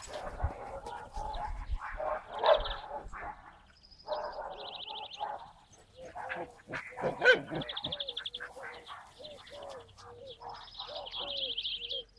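Dogs romping on grass, with panting and scuffling, and one loud bark about seven seconds in. Songbirds trill repeatedly in the background, and a run of short, evenly repeated low calls is heard in the second half.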